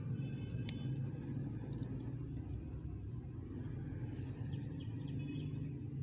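Steady low rumble, with a single sharp click less than a second in and faint high tones near the start and again about five seconds in.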